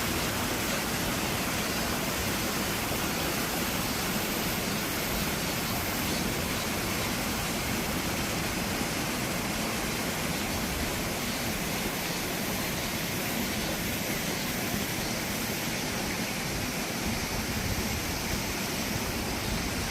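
Mountain stream water rushing, a steady even rush.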